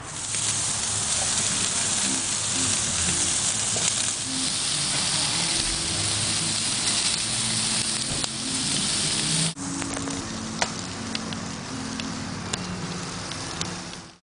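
Steaks and corn sizzling on a grill grate over lump charcoal: a steady, loud hiss with scattered crackling pops from the fire. The sound breaks off for an instant about nine and a half seconds in, then the sizzle carries on.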